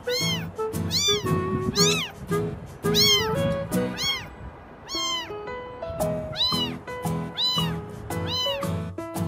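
Kitten meowing over and over in high, arching cries that rise and fall, about a dozen in all, over background music with a steady beat.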